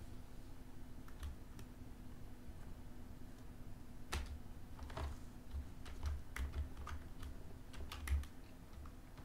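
Computer keys being pressed: a couple of light clicks early, then a scattered run of key clicks over a few seconds, the loudest near the end, over a faint steady hum.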